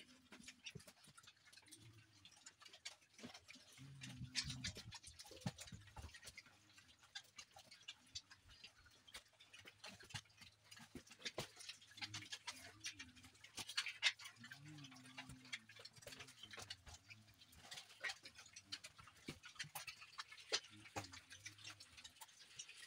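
Several piglets eating tomatoes and vegetable scraps, a steady irregular clicking of chewing and smacking. Low grunts break in now and then.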